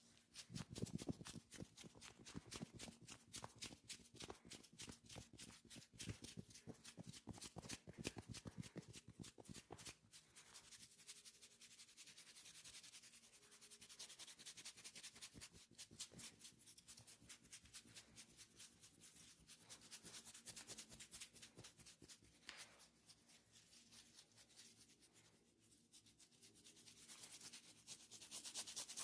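Hands massaging skin, with a quick run of short rubbing and stroking strokes, busiest in the first ten seconds.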